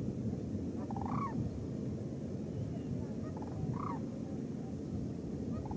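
Sandhill cranes giving faint rolling, rattling calls, three of them spread across a few seconds, over a steady low rumble.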